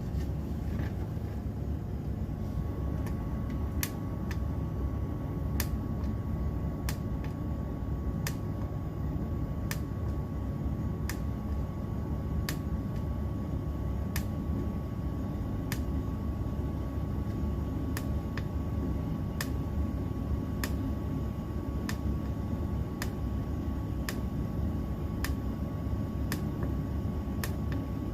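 Trane furnace blower running steadily for cooling, a low whooshing hum with a thin steady whine that comes in about two seconds in. A light sharp tick sounds roughly every second and a half.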